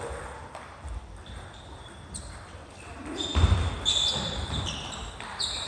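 Sports shoes squeaking on a wooden gym floor, short high squeaks, with a heavy thud of footsteps about three and a half seconds in.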